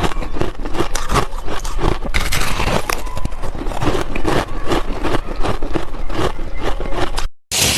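Ice being bitten and chewed close to the microphone: a dense, continuous run of crackling crunches. The sound cuts out completely for a moment near the end.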